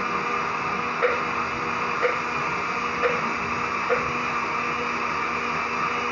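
Pot of chicken boiling on a stove: a steady hiss, with a light tick about once a second for the first four seconds.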